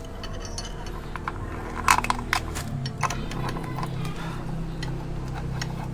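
Sharp metal clinks and taps from work on a motorcycle's chain and fittings, over a steady low hum that steps up slightly in pitch a little under three seconds in.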